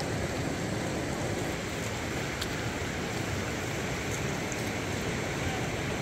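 Steady rush of a fast-flowing river, with a faint click about two and a half seconds in.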